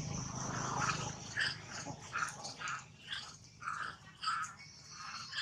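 Baby macaque crying: a run of short, repeated distress cries about half a second apart.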